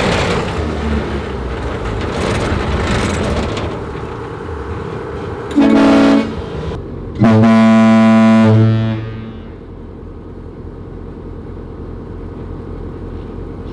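Two blasts of a cruise ship air horn mounted on a Humvee: a short one about five and a half seconds in, then a longer, deeper one that cuts off about two seconds later. Between and around them is the steady noise of the Humvee driving.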